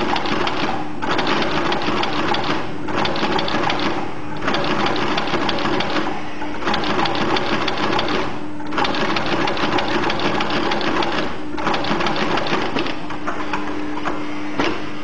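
xs0012 lockstitch sewing machine stitching a leather moccasin in quick runs of one to three seconds with short pauses between, over a steady hum. The stitching stops about thirteen seconds in, followed by a single click.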